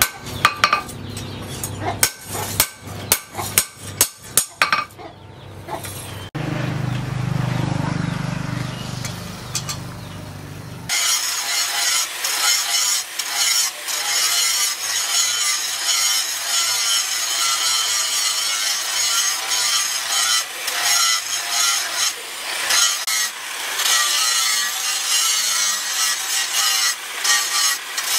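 A rapid series of hammer blows on a steel knife blade on an anvil for about five seconds. After a few seconds of lower, steadier noise, an angle grinder with a flap disc grinds the blade steel, with a whine that wavers as it is pressed into the work.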